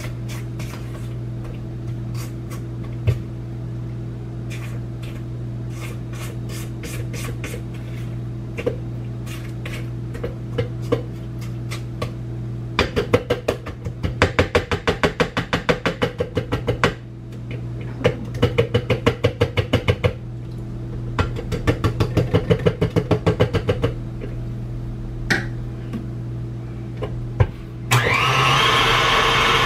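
A utensil scrapes and stirs cookie dough in a mixing bowl, with scattered clicks and then three spells of quick, even strokes, about five a second, as the sides of the bowl are scraped down. Near the end an electric mixer switches on and runs steadily.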